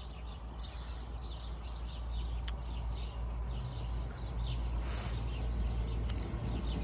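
Small birds chirping, many quick falling chirps, over a low steady rumble from a Great Western Railway Class 802 train at the platform, growing slowly louder near the end.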